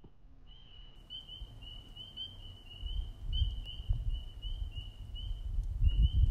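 High-pitched chirping calls repeated about three times a second over a steady high trill, a spring chorus of small animals. A low rumble of wind on the microphone grows from about halfway through.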